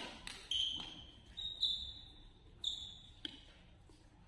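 Court shoes squeaking several times on a sports-hall floor during a badminton doubles rally. The squeaks are high-pitched and come in short runs over the first three seconds or so. Sharp racket hits on the shuttlecock are mixed in, the loudest at the very start.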